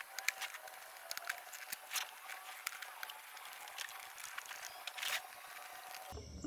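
Plastic leaf-blower tube sections being worked and forced together, giving scattered sharp clicks, taps and creaks. The tube is a tight fit, lubricated with dish soap. Near the end the background changes abruptly to a low steady hum.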